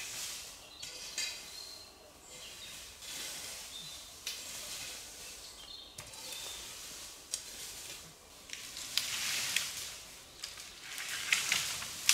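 Outdoor forest sound: a steady hiss with brief high bird-like chirps. From about nine seconds in, louder crackling rustles with sharp clicks.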